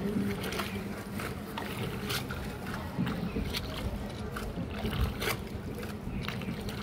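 Hand-rowed tour boat gliding along a canal: water splashing and short irregular knocks from the oar, over a steady low hum.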